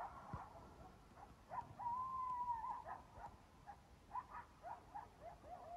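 Faint animal calls: several short, rising yelp-like notes and, about two seconds in, one longer held call.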